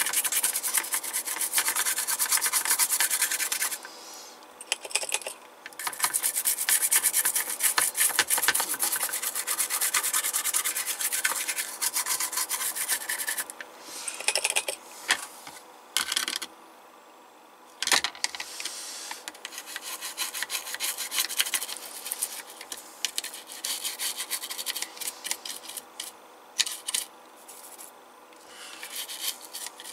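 Toothbrush bristles scrubbing the solder side of a monitor's power-supply circuit board, a rapid scratchy brushing with a couple of short pauses.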